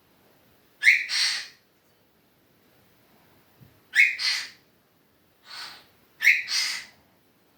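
Pet parrot mimicking sneezes, four times. Most come in two parts: a sharp whistly "ah" followed by a hissing "choo".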